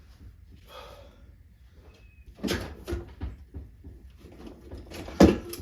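Workshop clatter: tools and engine parts being handled, with scattered clanks and one sharp knock about five seconds in.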